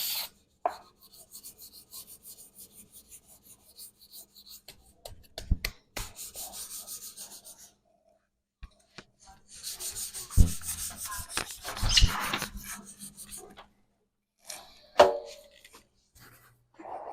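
Hand-sanding primer on a car body panel with 320-grit sandpaper: quick, regular back-and-forth rasping strokes. After a short pause the sanding comes back heavier, with a few dull knocks, and there is one more knock near the end.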